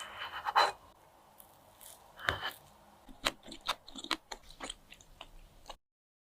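Close-up crunching and clicking handling sounds: a crunchy burst about half a second in and another about two seconds in, then a quick run of sharp clicks and taps. The sound cuts off suddenly near the end.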